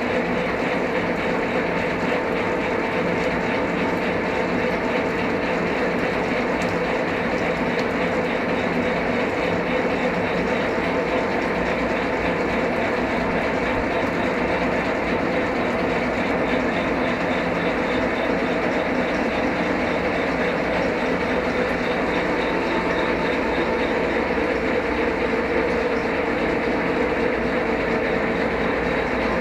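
WMW GFL 5000 thread milling machine running steadily: an even mechanical whir with a steady humming tone, unchanging in level.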